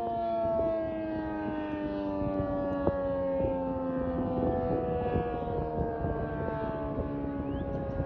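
ACA P-50 civil defense siren sounding, several tones at once, its pitch sliding slowly and steadily lower.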